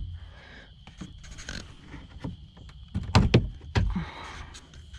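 Plastic trim clips on a Lexus GS300's rear deck trim being popped up with a clip fork, with the trim being handled: scattered light clicks, then a few sharp knocks about three seconds in.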